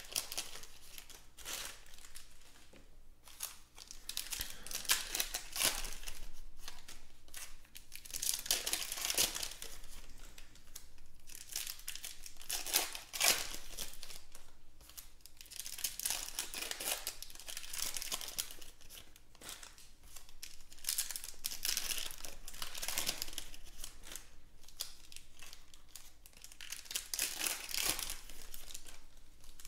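Foil basketball card pack wrappers crinkling and being torn open by hand, in irregular bursts of crackling.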